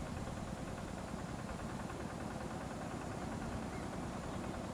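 Airbus A319 airliner's jet engines on short final for landing, a steady noise heard from the ground.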